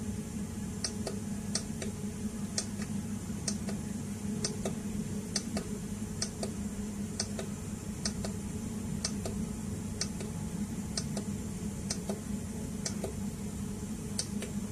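Push-buttons on a UPSEN hybrid inverter's front panel clicking, about one or two presses a second, as a battery-voltage setting is stepped up and down. A steady low hum runs underneath.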